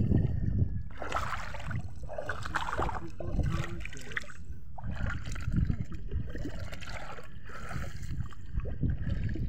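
Legs wading through shallow seawater: irregular sloshing and splashing, about one splash every second or so, over a steady low rumble.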